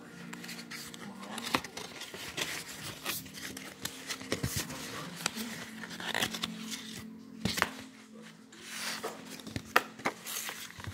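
A cardboard box and paper instruction sheet being handled and opened, rustling with many sharp clicks and scrapes, over steady background music.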